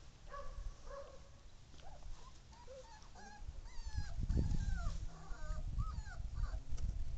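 Husky puppies whimpering: many short, high-pitched whines that rise and fall in pitch. A low rumble comes in around the middle.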